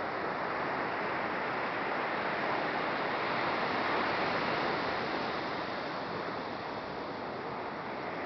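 Ocean surf breaking on a sandy beach: a steady wash of noise that swells a little about four seconds in.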